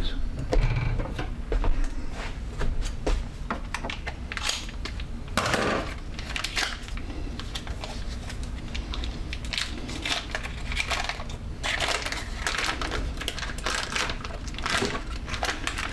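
Packaging of a processed-cheese block being opened by hand: irregular crinkling and rustling of the wrapper, with scattered clicks and light knocks from handling.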